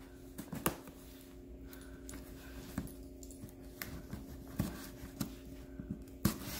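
Packing tape on a cardboard shipping box being slit open with a small metal tool: faint, scattered scratches and clicks as the tool is drawn along the seam, with a louder click near the end.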